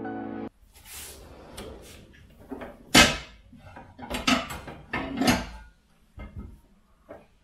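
A pull-out kitchen drawer being rummaged through, with pans and other kitchenware clattering and knocking against each other while a frying pan is taken out. The knocks come one after another, the loudest about three seconds in, with a cluster between four and five and a half seconds and two lighter ones near the end.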